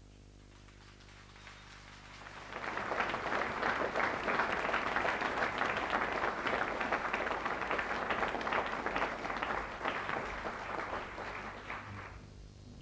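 Audience applauding in a theatre, building up about two seconds in, holding, then dying away near the end, over a faint low hum.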